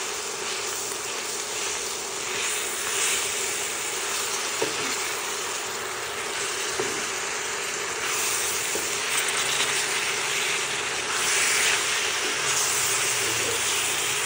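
Beef, rice and sauce sizzling steadily in a hot cast-iron skillet while being stirred with a wooden slotted spoon, with a few light knocks of the spoon on the pan.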